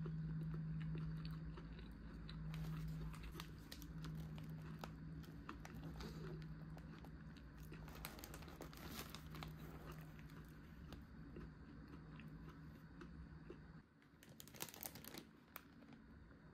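Crinkling and crunching as a fried chicken fillet is handled and bitten into, with scattered crisp clicks, over a steady low hum. The hum cuts off near the end, followed by a short cluster of crackles.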